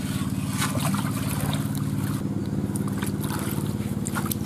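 A low engine drone runs steadily, the loudest sound, while water splashes and sloshes as manioc (cassava) roots are rubbed clean by hand in a basin of water.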